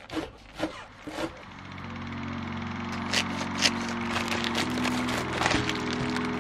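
A knife chops through green onions on a cutting board three times, then background music fades in as a steady chord. About three seconds in, the plastic wrapper of an instant-ramen packet crackles twice as it is torn open.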